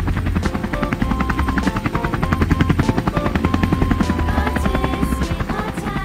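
Cartoon vehicle motor sound effect, a fast, even pulsing, playing under light background music.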